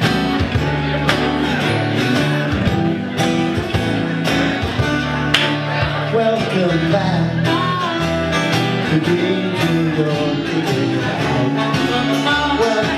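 Live acoustic band music with no vocals: several acoustic guitars strumming chords to a steady beat, and a harmonica playing the melody.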